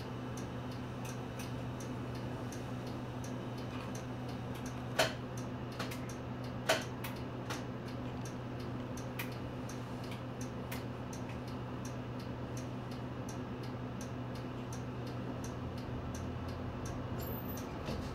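City bus's indicator relay ticking steadily, about one and a half ticks a second, over the steady hum of its idling diesel engine (Nissan Space Runner). Two louder clicks come about five and seven seconds in, and the engine note changes near the end.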